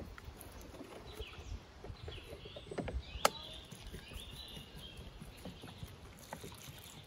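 Irregular knocks, thumps and scraping from hand work with wood or earth, with one sharp click about three seconds in. Birds chirp faintly in the background.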